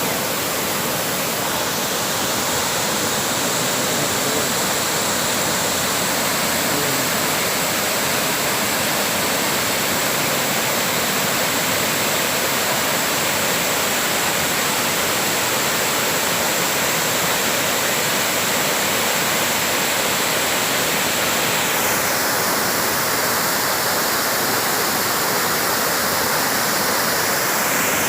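A waterfall's steady rush of falling water. Its tone turns slightly duller about three-quarters of the way through.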